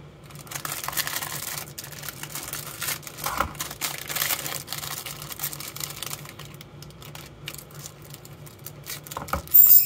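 Clear plastic bag crinkling and rustling as it is opened, with many light clicks and taps of the hard plastic phone-case parts being handled. A short, sharp, louder noise near the end.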